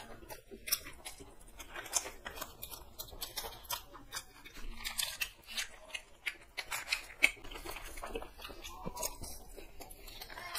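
Two people biting into and chewing egg rolls, a run of irregular small clicks and smacks of eating.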